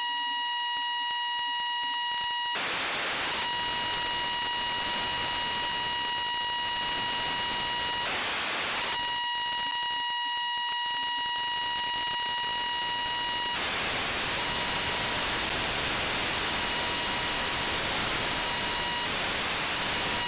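Satellite FM downlink demodulated by a software-defined radio: a steady tone near 1 kHz with its overtones. Hiss swamps it three times, briefly about 2.5 s and 8 s in, then for several seconds from about 13.5 s in, the typical sound of the satellite's signal fading in and out.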